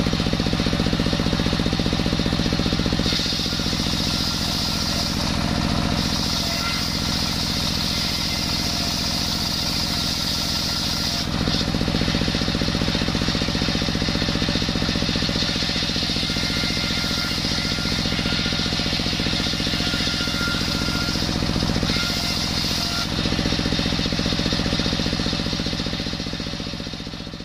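Belt-driven table saw powered by a single-cylinder stationary diesel engine, running steadily with the engine's even firing pulse underneath. The circular blade rips through coconut wood, adding a hissing cutting noise from about three to eleven seconds in and again briefly near the end, before the sound fades out.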